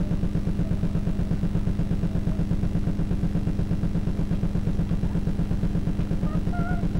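A steady low mechanical hum that pulses evenly about six times a second.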